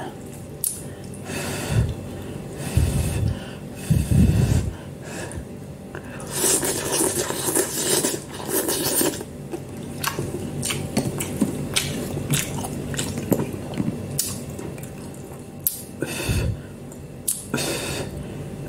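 Instant noodles being eaten with a spoon and fork: slurping and chewing, with cutlery clicking and scraping against the bowl. A few dull thumps come in, the strongest about four seconds in.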